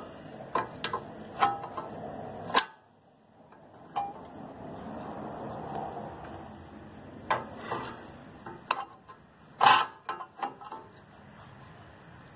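Steel wrench clinking on the outer tie rod end's nut as it is fitted and turned, backing the nut off almost to the end of its threads. Irregular metal clicks, the loudest about three-quarters of the way through.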